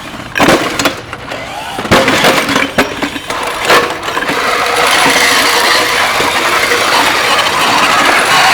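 Small combat robots crashing into each other several times in the arena, then a steady loud mechanical whirring from their motors that sets in about halfway through.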